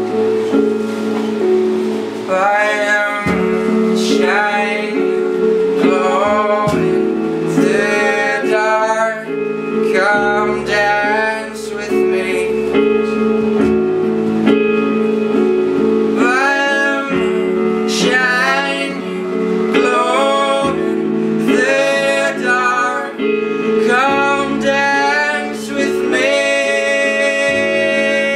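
Live acoustic band performance: steady guitar chords with a singer coming in about two seconds in, singing drawn-out wavering phrases over them.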